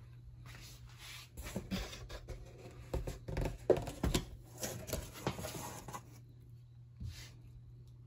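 Close handling noise: irregular rustling and scratching with several sharp knocks from about half a second to six seconds in, and one short scrape near the end, over a steady low hum.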